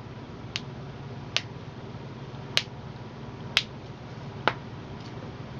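Five sharp single cracks about a second apart: finger and thumb knuckle joints popping as they are pulled and manipulated during a chiropractic hand adjustment.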